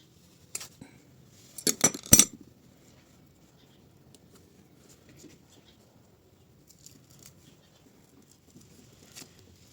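Sharp clicks and a brief clatter of small hard objects, loudest about two seconds in, then a few faint ticks and one more click near the end.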